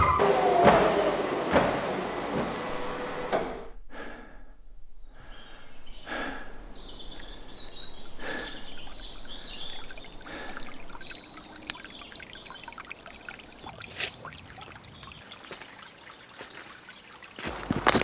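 A loud, noisy din fades over the first few seconds and cuts to near silence about four seconds in. Then a small woodland stream trickles over stones, with a few bird calls and a few light knocks.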